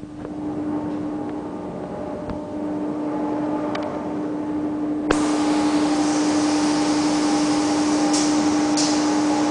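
Steady machine hum of a running EVA sheet extrusion line, with one constant tone. About five seconds in there is a sharp click, after which a louder hiss joins and the sound gets louder, with a couple of brief hissing spurts near the end.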